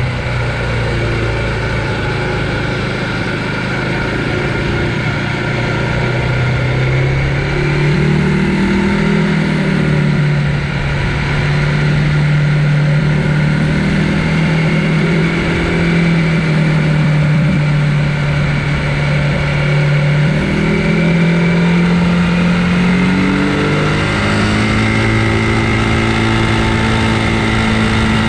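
Conway EMC 529 electric mountain bike being ridden: continuous rolling and drive noise with a steady hum that steps up and down in pitch a few times.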